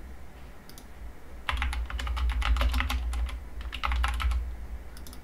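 Typing on a computer keyboard: a couple of keystrokes about a second in, then two quick runs of keystrokes, the longer one from about one and a half to three seconds in and a shorter one around four seconds.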